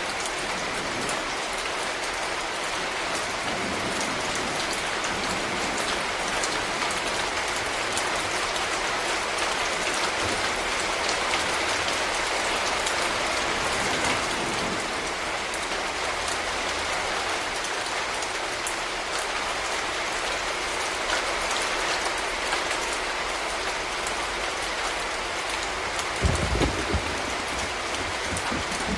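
Steady rain falling, with many sharp individual drop hits through it. A few low thuds come close together near the end.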